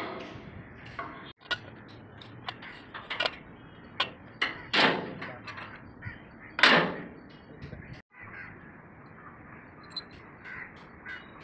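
Scattered clinks and knocks of steel on steel as bolts and a pry bar are worked at the bolted mast joint of a Sany SR235 piling rig, with two louder half-second noisy sounds about five and seven seconds in.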